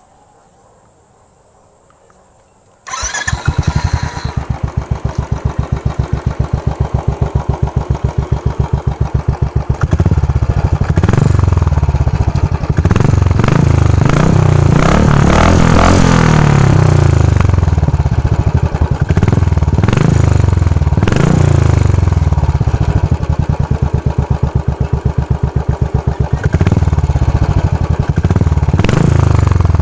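Royal Enfield motorcycle fitted with an aftermarket megaphone exhaust starting up about three seconds in, then idling with a deep, pulsing exhaust note. From about ten seconds on it is revved repeatedly, the pitch rising and falling with each blip of the throttle.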